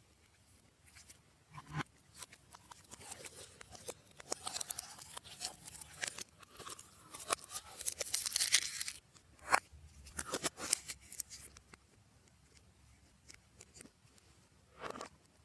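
Slime being worked by hand: irregular sticky crackles and small clicking pops, busiest and loudest in the middle, then thinning to a few scattered clicks.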